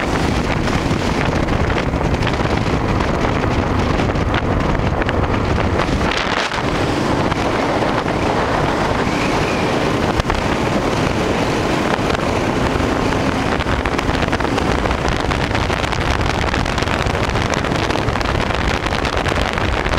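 Steady wind noise over the microphone of a motorcycle riding at road speed, with the bike's engine running beneath it.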